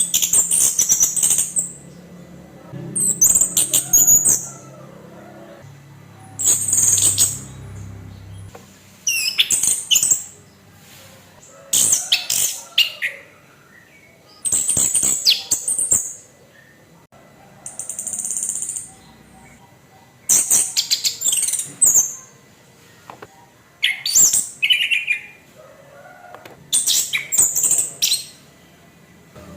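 Orange-headed thrush (anis kembang) singing in about ten short, high-pitched phrases, each lasting a second or so, with pauses of a second or two between them.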